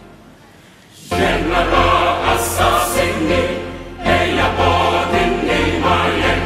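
Background music with voices singing over a steady low bass, coming in loudly about a second in after a short quiet gap.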